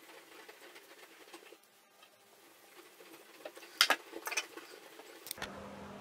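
Quiet soldering-bench handling: faint hiss, then a few sharp metallic clicks and taps a little before the four-second mark as tools and the helping-hands clamp are handled. A low steady hum comes in near the end.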